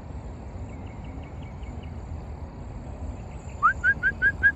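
A bird calling outdoors: faint high chirps about a second in, then near the end a loud, quick run of about six short notes, each sweeping up in pitch, over a steady low background rumble.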